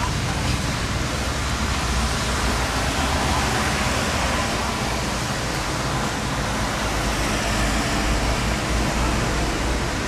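Steady city street traffic noise: the even hiss of cars running on a wet road.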